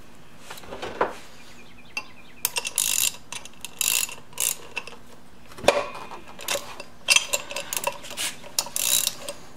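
Socket ratchet clicking in short runs, starting about two and a half seconds in, as it turns a double-nutted stud in a motorcycle's aluminium wheel hub.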